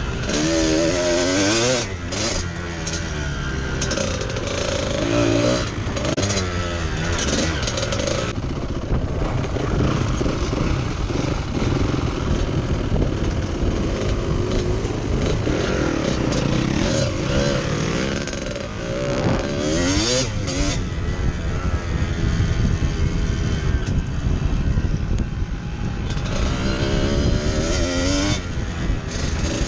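Trail motorcycle's engine running under way, its pitch rising and falling again and again as the rider works the throttle and gears, over a steady rush of wind and ground noise.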